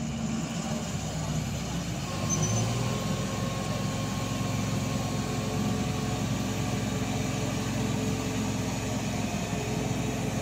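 Diesel engine of a JCB tracked excavator running under load as it works its arm over a dump truck: a steady, heavy drone that grows louder about two seconds in.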